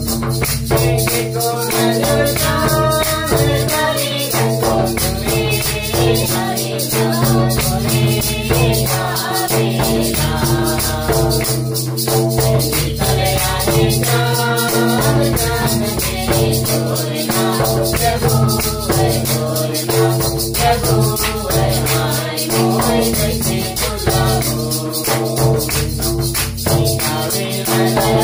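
A group of men and women singing a devotional hymn in chorus, with a hand-held plastic rattle shaken in a steady rhythm, hand clapping, and a two-headed barrel drum.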